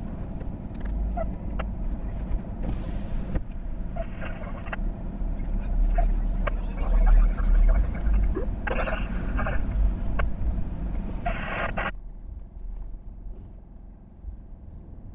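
Cabin noise of a Chevrolet Tahoe on the move: a steady low engine and road rumble with scattered light ticks and rattles. Near the end the sound suddenly drops and thins out.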